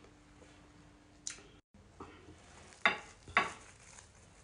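A few short rustles and knocks as a piece of pounded yam is pulled off a plastic-wrapped lump. The two loudest come half a second apart in the second half.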